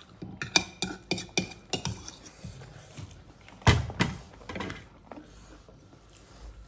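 Dishes and utensils clinking and knocking as they are handled: a quick run of sharp clicks in the first two seconds, a louder knock a little past the middle, then a few quieter ticks.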